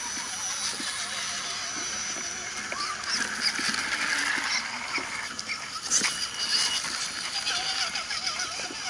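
Scale RC crawler trucks, an Axial SCX10 Jeep Wrangler and an Axial Yeti among them, driving over rocks and dry leaves. Their electric motors and gears whir and their tyres crunch, with a few sharp knocks from the trucks bumping over rocks around the middle.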